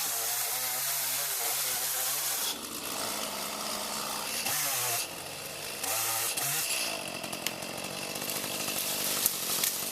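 Old Echo two-stroke chainsaw running, revving up to full throttle and easing back off several times, as in cutting wood.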